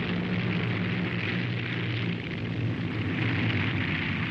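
Junkers Ju 52 trimotor's three BMW radial engines running on the ground, a steady engine drone.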